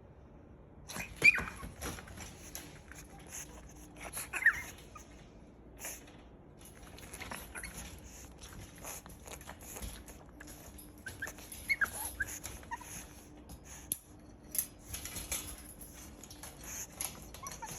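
Pug puppy sneezing and snorting in short, sudden bursts, with a few brief high squeaks between them; the loudest burst comes about a second in.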